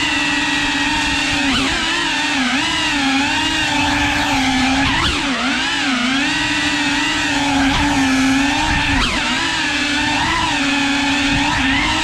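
Cinewhoop FPV quadcopter's motors and ducted propellers whining in flight, the pitch dipping and swooping every second or two as the throttle changes.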